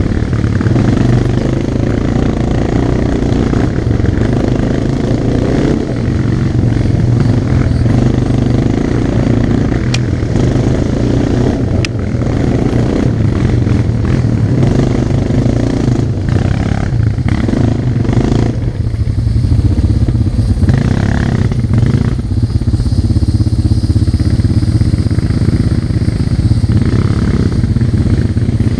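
ATV engine running steadily while the quad is ridden along a dirt trail, heard onboard from the rider's helmet, with trail and wind noise over it. Two sharp ticks partway through.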